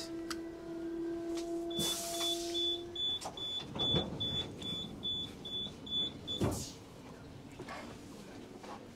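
RegioJet train door warning signal beeping rapidly, about two and a half high beeps a second for some five seconds, with a hiss and the whir of the door mechanism as the exit door is released, and a knock as the beeping ends. A steady hum under it stops about three seconds in.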